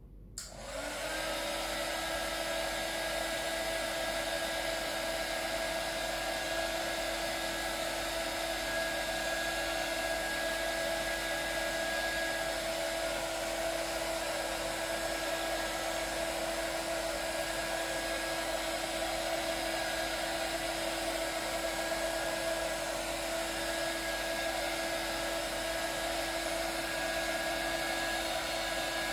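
Hot air gun switched on and blowing steadily, a fan whir with a steady hum in it, coming up to speed in the first second. It is heating a motorcycle headlight so the lens can be opened.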